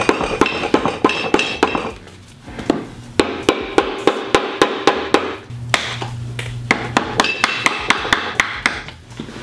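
A mallet striking the shifter housing of a T5 manual transmission in quick repeated blows, about five a second, in three runs separated by short pauses, working a stuck part of the shifter loose.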